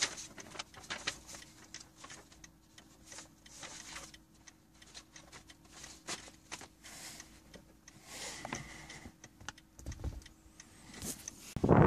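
Scattered small clicks, taps and rustles of handling inside a stopped car, over a faint steady hum, with a sudden loud burst of noise near the end.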